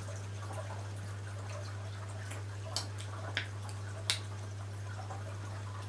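A few faint wet mouth clicks and smacks of a hard-candy lollipop being sucked, four or so short ones from about two seconds in, over a steady low hum.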